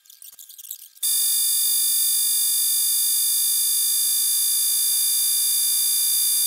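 Pencil scratching on paper, then about a second in a loud, steady buzzing tone rich in overtones starts suddenly, holds without change, and cuts off abruptly near the end.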